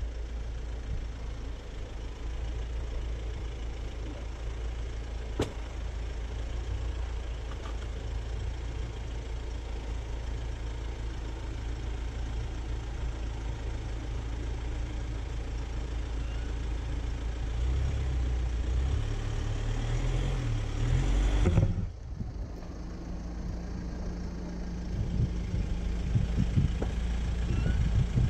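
Jeep engine running steadily on a 4x4 trail, working harder and louder for a few seconds past the middle, then dropping off abruptly; after that a steadier, slightly higher note with a few knocks and rattles.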